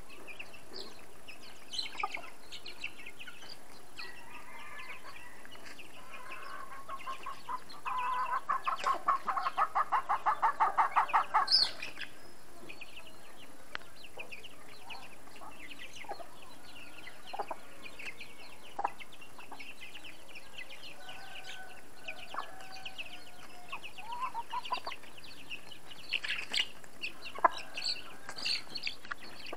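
Chickens and chicks at feed: chicks peeping on and off, and about a third of the way in one bird gives a long run of rapid clucks, about four a second, growing louder for some four seconds.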